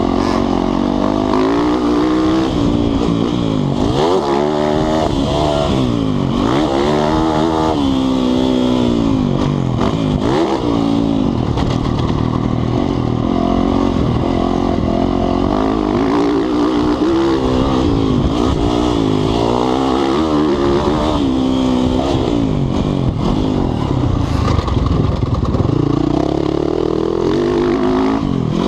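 Motocross dirt bike engine heard from a camera mounted on the bike or rider, revving up and dropping back every couple of seconds as the throttle is worked and gears change. It holds steadier for a stretch in the middle and climbs again near the end.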